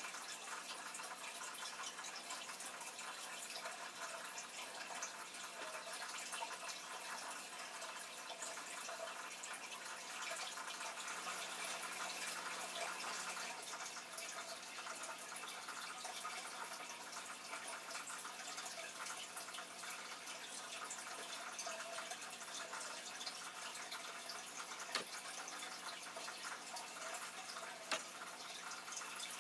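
Steady, faint trickling water of an aquarium's filter running, with two short clicks near the end.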